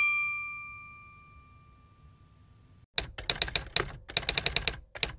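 A bright chime rings at the start and fades away over about three seconds. About three seconds in, a fast run of typewriter key clacks starts, about six a second with a short pause near the end: a typing sound effect as title text is spelled out.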